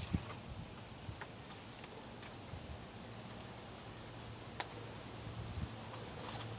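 Insects chirring as a steady high-pitched drone, with a few faint clicks and knocks from teleprompter parts being handled on a wooden table.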